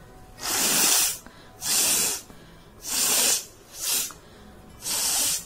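A person blowing their nose hard five times in quick succession, about once a second; each blow is a short rushing hiss of air forced out through the nostrils.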